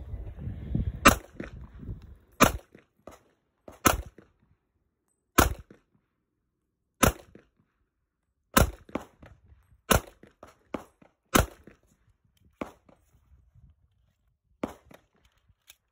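Smith & Wesson 1911 pistol firing .45 ACP: eight single shots about a second and a half apart, each followed by fainter clicks. A quieter sharp sound comes near the end.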